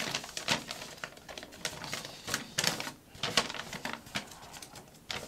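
A sheet of paper being handled and unfolded, giving a run of irregular crackles and rustles.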